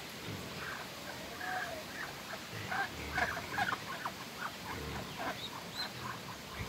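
Muscovy ducks and their ducklings calling as they feed: many short peeps and chirps, few at first, coming thick and fast from about two and a half seconds in.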